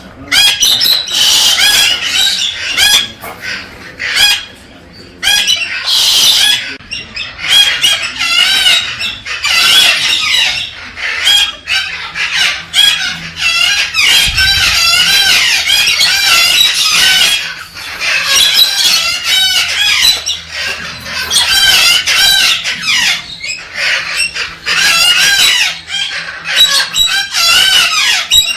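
Galah cockatoo calling and chattering: a dense, continuous stream of rapid, wavering, screechy warbles and squeals.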